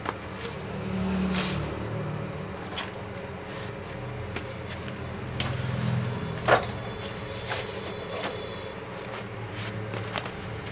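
A low rumble that swells and fades, with scattered light clicks and knocks, the loudest about six and a half seconds in.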